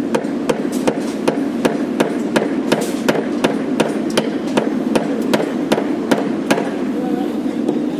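Hammer blows on a construction site: a quick, slightly uneven run of sharp strikes, about three a second, over steady background noise.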